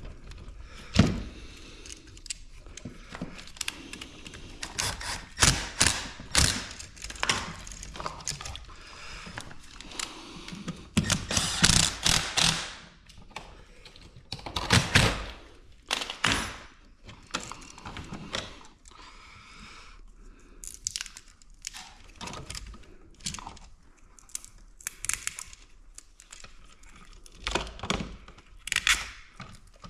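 Scattered clicks, knocks and rustles from hands and a screwdriver working on a GFCI receptacle's wires and terminal screws, with a few sharper knocks.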